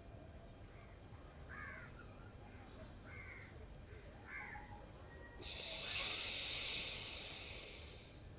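Crows cawing several times, then a loud hissing out-breath through one nostril starts suddenly about five and a half seconds in and fades away over nearly three seconds: the slow exhalation of ujjayi pranayama after the breath hold, right nostril closed and air let out through the left.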